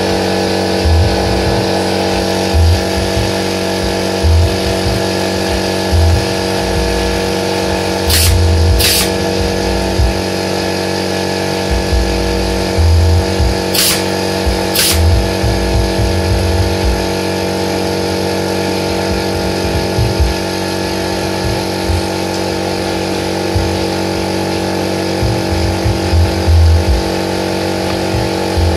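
Air compressor motor running steadily throughout, with a pneumatic nail gun firing four sharp shots: two about a second apart some eight seconds in, and two more about a second apart around fourteen seconds in, nailing the wooden slats of the truck bed.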